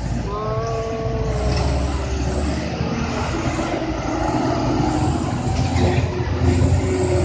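Diesel engines of loaded Mitsubishi Canter trucks running under load as they crawl through deep mud: a steady low rumble. A higher drawn-out tone sounds over it for about two seconds near the start.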